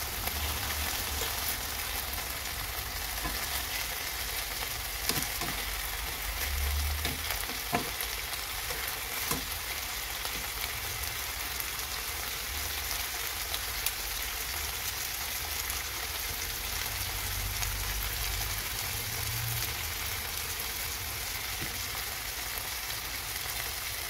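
Chicken wings frying in oil in a frying pan, a steady sizzle, with a few light clicks as the pieces are turned over with tongs.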